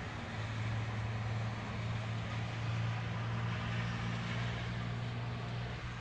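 Steady hiss of a heavy wet-snow storm with a steady low hum underneath.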